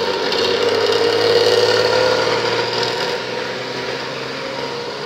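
Bus engine running through a modified exhaust, a steady rough note that eases off slowly over the last couple of seconds.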